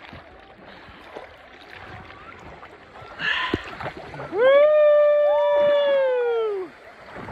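A brief shout, then a woman's long held yell that rises at the start and falls away at the end, as she rides a zipline down into the river. Moving water can be heard underneath.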